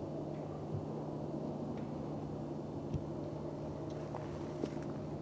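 Steady low hum with an even hiss underneath, and three faint short clicks about one, three and four and a half seconds in.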